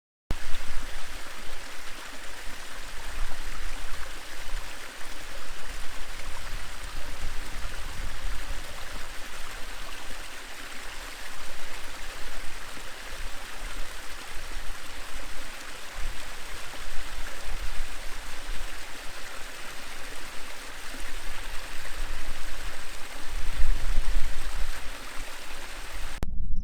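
Steady rushing water of a hill stream, a dense even hiss, with a low rumble that swells briefly near the end.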